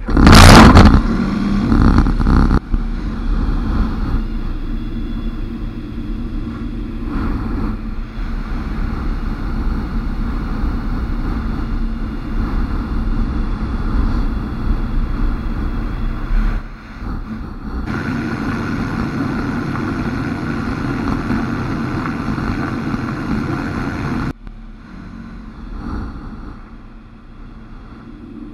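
Ikarus C42 microlight's engine starting with a loud burst, then running steadily with the propeller turning at taxi power, its level shifting abruptly a few times.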